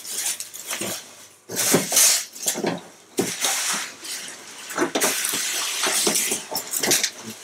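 Packaging rustling and crinkling as things are lifted out of a cardboard box: plastic-wrapped parts and loose foam packing peanuts. It comes in irregular bouts, with a steadier stretch of rustling in the second half.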